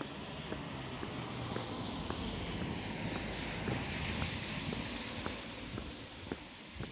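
Footsteps in snow, about two steps a second, under a rushing noise that swells to a peak about halfway through and then eases off.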